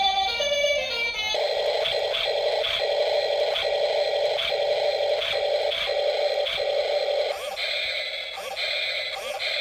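Electronic music: a short melody of stepped single notes, then about a second and a half in a buzzy electronic sound that pulses about twice a second.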